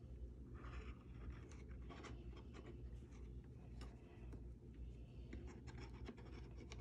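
Faint scratching and rubbing of fingers pressing a crocheted yarn panel down onto a picture frame's hot-glued edge, with scattered light clicks over a steady low hum.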